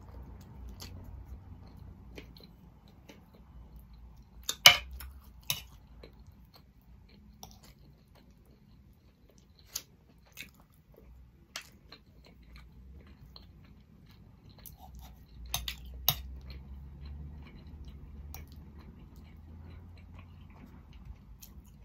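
Close-up eating sounds: chewing and soft mouth sounds, with scattered sharp clicks of a metal knife and fork against a plate. The loudest click comes about five seconds in.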